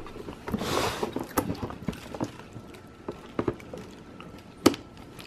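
Handling of a cardboard gift box and tissue paper: a rustle about a second in, then scattered light taps and clicks. Near the end comes one sharp snip as scissors cut into the box.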